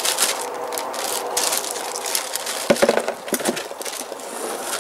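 Packaging crinkling and rustling as it is handled, a dense run of crackles with a few louder strokes around the middle.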